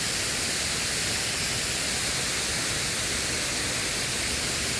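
Steady, unbroken rush of water pouring through the dam's gates.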